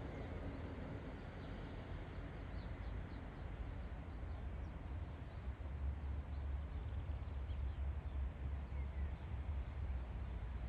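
Steady hiss of falling rain under a low rumble that grows louder about halfway through, with a few faint bird chirps.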